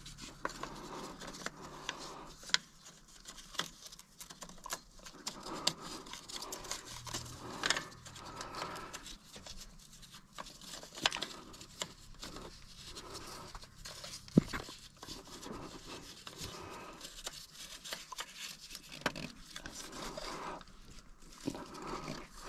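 Scattered clicks, taps and light scrapes with rustling between them: hands handling parts and tools while working on the tractor's fuel filter, with no engine running.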